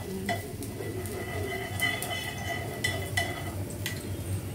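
Vegetable filling frying in ghee in a frying pan on a gas stove, with a faint sizzle under a spatula stirring. Several light clinks and taps of the spatula against the pan and a small glass bowl come at uneven intervals.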